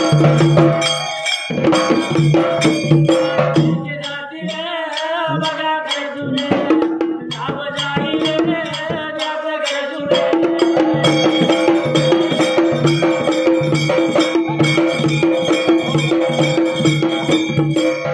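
Maharashtrian Dhangari ovi folk music: a large dhol beaten in a steady rhythm with sharp metallic percussion strikes over a held drone tone. About four seconds in the drumming thins out for several seconds while a wavering melody carries on, then the full beat comes back.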